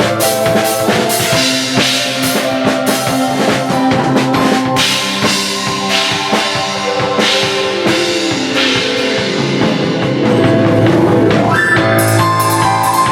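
Live drum-and-keyboard jam: a large drum kit with bass drum and plenty of cymbal wash plays along with sustained keyboard chords. Around the last couple of seconds the keyboard part shifts to a new chord.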